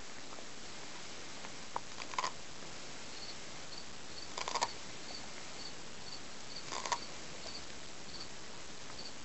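Dog crunching on a corn cob in three short bursts of chewing, about two, four and a half and seven seconds in. Crickets chirp faintly and steadily behind it.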